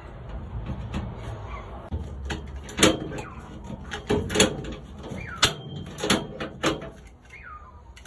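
Hand pop-rivet tool squeezed on aluminum pop rivets in an aluminum frame: a series of about half a dozen sharp metallic clicks and snaps, roughly a second apart, over a low steady rumble.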